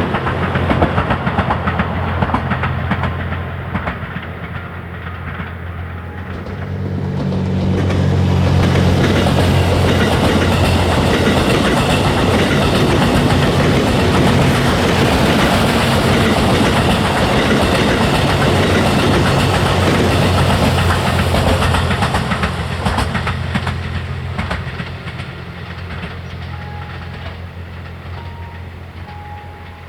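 Series 87 Twilight Express Mizukaze diesel train passing, its engines humming steadily under the clatter of wheels over rail joints. The sound swells about seven seconds in and fades away over the last several seconds.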